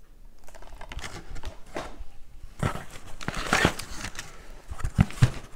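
Plastic DVD and Blu-ray cases being handled and swapped, with crinkly rustling of the wrap and scattered clicks, then two sharp clacks of a case near the end.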